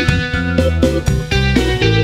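Background music led by guitar over a low bass line, with a regular beat.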